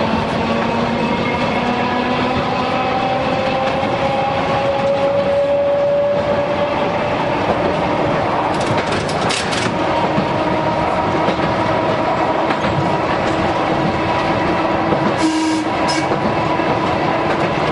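Toyohashi Railway 3700-type tram's nose-suspended (tsurikake) traction motors and gears whining and grinding as the car runs. The whine rises in pitch over the first several seconds as the tram gathers speed, then holds steady. A few sharp clacks come about halfway through and again near the end.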